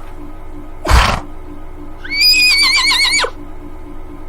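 A horse gives a short breathy snort about a second in, then whinnies: a high call that rises, quavers rapidly for about a second and drops off at the end.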